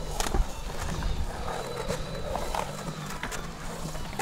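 Skateboard wheels rolling on the concrete of a skatepark bowl: a steady low rumble with scattered sharp clacks, the loudest just after the start.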